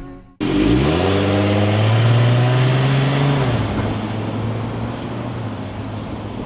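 Minivan engine pulling away: it cuts in abruptly, revs up with a rising pitch, holds a steady note, then drops a little about three and a half seconds in and slowly fades as the van drives off.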